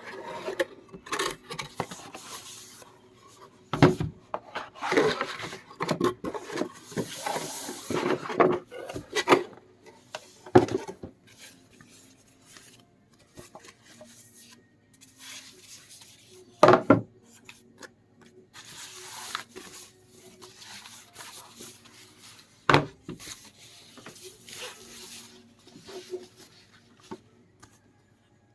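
Handling noises: objects being rubbed, shifted and set down, with rustling and clicking and several sharper knocks spread through.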